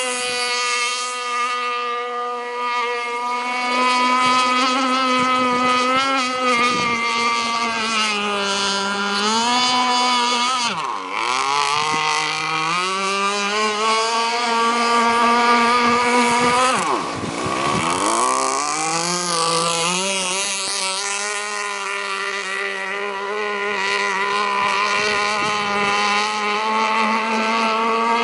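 Radio-controlled model speedboat running flat out across the water, its motor holding a high, steady pitch. The pitch dips sharply and climbs back twice, about ten and about seventeen seconds in.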